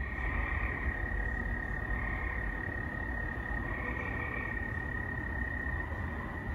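Night chorus of field crickets calling steadily throughout, with gray tree frogs trilling on and off over it, three times in these seconds.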